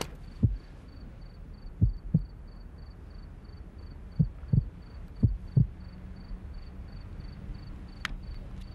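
Heartbeat sound effect: low double thumps, lub-dub, coming at uneven intervals, over a faint steady high ticking. A low hum joins about six seconds in, and a single sharp click comes near the end.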